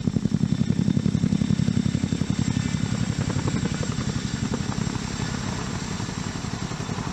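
CH-47 Chinook tandem-rotor helicopter flying close by: a rapid, even thudding of the rotor blades with a thin high whine above it, easing off a little near the end.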